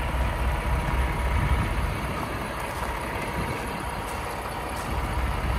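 Paccar MX-13 inline-six diesel of a Kenworth T880 idling, a steady low rumble that softens for a couple of seconds in the middle.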